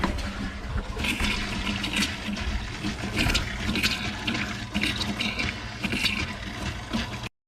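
Campervan water pump running with water rushing and spluttering through the new plumbing in irregular spurts, air still in the lines as the hot water tank fills. It cuts off suddenly near the end.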